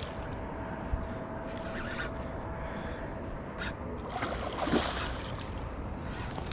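Angler playing a hooked catfish on rod and reel: scattered clicks and handling sounds with light water sounds over a steady background hiss.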